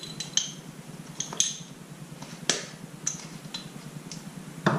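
Scattered light clinks and knocks of metal measuring spoons and a small jar being handled on a kitchen counter, about eight separate taps, the strongest about halfway through.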